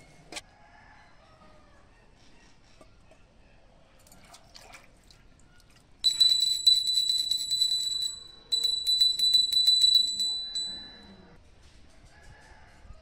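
Brass puja hand bell rung rapidly in two spells of about two seconds each, starting about six seconds in, a bright ringing tone that dies away after the second spell.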